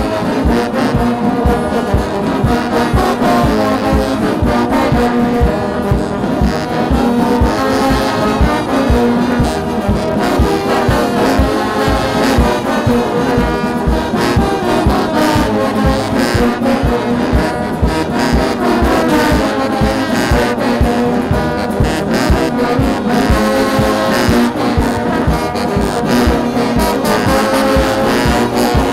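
Brass band music with a steady beat, several horns playing held notes and a melody together.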